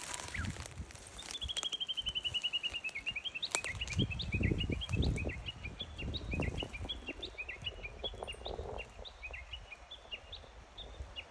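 A small songbird singing: a quick falling run of short notes, then a long string of rapid twittering chirps. A low rumble of wind or handling noise sits under the middle part.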